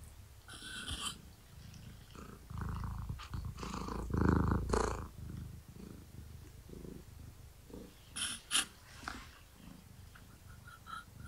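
Long-haired tabby cat purring close to the microphone, with a few brief scuffs and two sharp clicks near the end.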